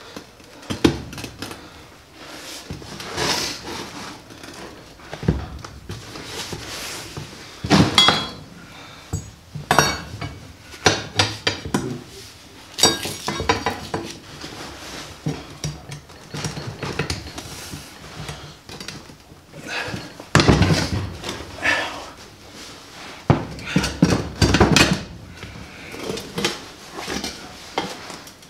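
Steel tire irons prying and scraping as a garden tractor tire's bead is levered onto its wheel rim by hand, with irregular metal clanks and knocks, some briefly ringing.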